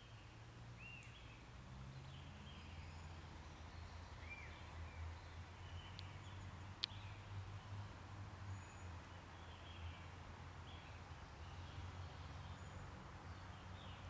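Faint, short chirps of small birds over a steady low rumble, with one sharp click about seven seconds in.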